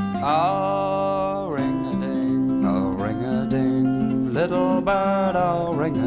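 Music: an acoustic guitar playing a plucked folk-song intro, with long wavering pitched notes over it near the start and again about four and a half seconds in.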